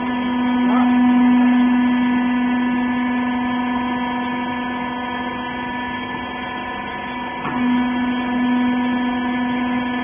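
Hydraulic power unit of a baler running with a steady electric hum and a strong low tone, swelling about a second in and again from about seven and a half seconds on.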